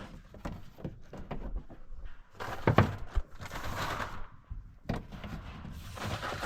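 Scattered knocks and rustling from someone moving about and handling things, with a louder bump about two and a half seconds in and another near the end.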